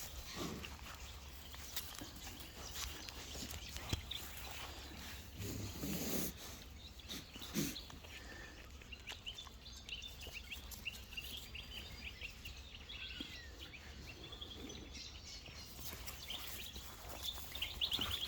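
Sheep close by, with a couple of short low sounds about six and seven and a half seconds in and scattered small clicks over a steady low rumble. Small birds chirp through the second half, busier near the end.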